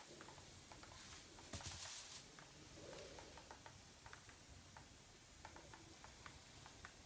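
Near silence: room tone with faint, irregular small ticks a few times a second and a brief soft hiss about a second and a half in.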